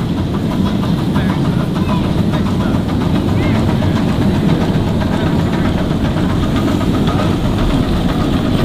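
A 10¼-inch gauge miniature steam locomotive hauling a passenger train, pulling away and running past at a steady level, with the noise of its running gear and wheels on the rails.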